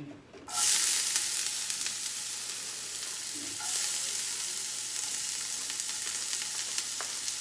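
Chopped onion dropped into hot bacon grease in a stainless steel skillet, sizzling. The sizzle starts suddenly about half a second in and swells again a few seconds later as more onion is scraped in from the plate.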